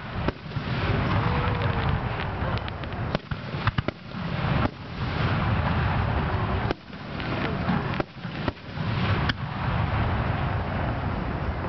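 Aerial firework shells bursting: a run of sharp bangs at uneven intervals over a steady low rumble.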